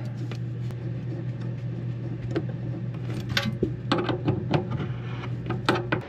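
A steady low hum, with scattered light clicks and knocks of metal being handled as a faucet's mounting nut and fittings are worked on beneath a stainless sink.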